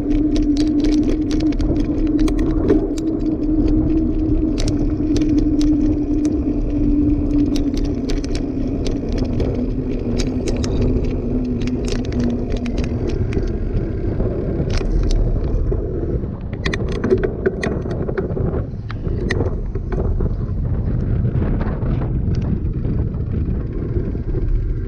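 Mountain bike riding on pavement: the knobby tyres hum as a steady tone that slowly drops in pitch and fades about halfway through, over a low rumble, with frequent clicks and rattles from the bike.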